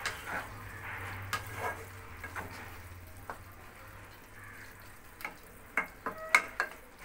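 Chicken and vegetables frying in a nonstick wok with a steady sizzle while a spatula stirs them, scraping and clicking against the pan. Near the end come a few sharper knocks of the spatula on the pan.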